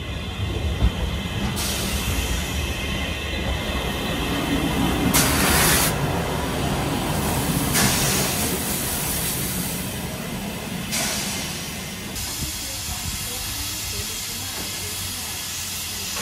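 Steam locomotive letting off steam: loud hissing over a low rumble, strongest about five and eight seconds in, then a steadier hiss from about twelve seconds on.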